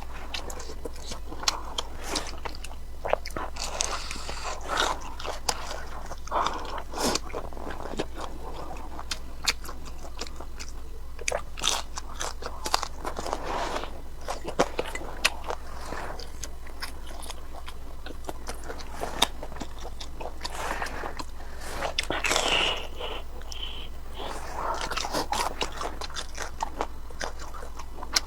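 A person biting and chewing food, with crunchy bites and many sharp mouth clicks throughout, over a steady low hum.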